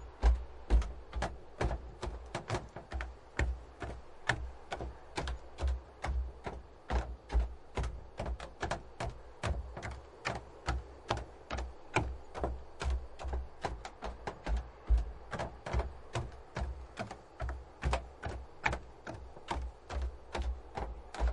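Footsteps on wooden dock planks: a steady walking rhythm of hollow knocks, each step with a low thud from the boards.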